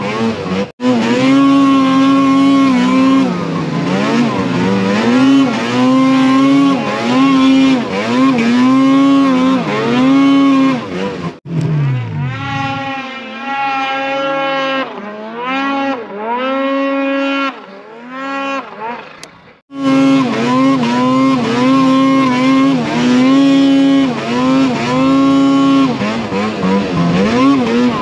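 Arctic Cat mountain snowmobile engine revving up and down as the throttle is worked on and off while riding. The sound cuts out sharply three times, and in the middle stretch it is quieter and lower.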